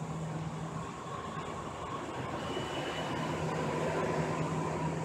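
Interior of a Siemens S200 light rail vehicle in motion: steady rumble of wheels and running gear with a low hum, and a faint high whine for about a second around the middle.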